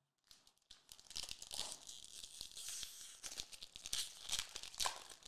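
Foil wrapper of a Dragon Ball Super Card Game booster pack crinkling and tearing as it is ripped open by hand. A dense, crackly rustle starts about a second in.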